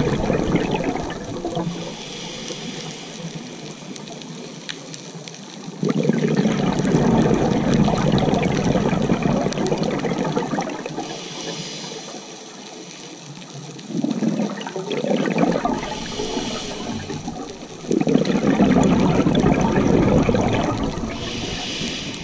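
Scuba diver breathing through a regulator underwater: a short hiss on each inhale, then a few seconds of bubbling as the exhaled air leaves the regulator, repeating three or four times.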